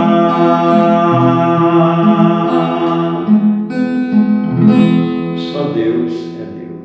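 Acoustic guitar strumming the closing chords of a song. The last chord rings out and fades away near the end.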